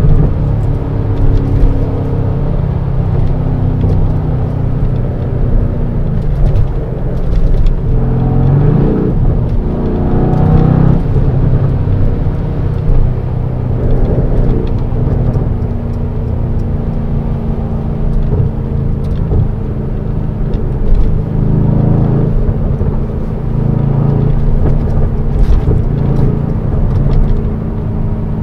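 Mercedes-AMG C63 S Estate's 4.0-litre twin-turbo V8, heard from inside the cabin at motorway speed. The engine note rises and falls a few times between about six and eleven seconds in, then holds a steady drone.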